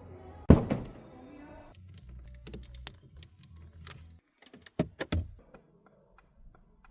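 A heavy thud about half a second in, followed by a run of light clicks and jingling like keys, with two sharper knocks near the middle.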